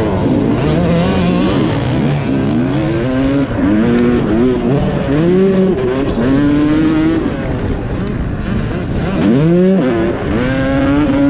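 Dirt bike engine heard from the bike itself, revving hard under acceleration, its pitch climbing and dropping back several times as the rider works through the gears.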